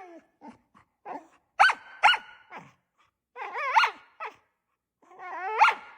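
Deaf double merle Australian Shepherd barking: two sharp barks about two seconds in, then two longer calls that waver up and down in pitch, one in the middle and one near the end.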